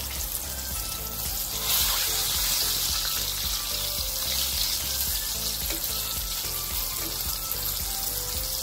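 Cornflour-coated threadfin fish pieces deep-frying in hot oil in a wok: a steady sizzle that grows louder about two seconds in.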